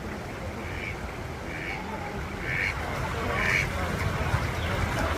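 Ducks quacking: four short quacks about a second apart, each a little louder than the last, over a steady low background noise.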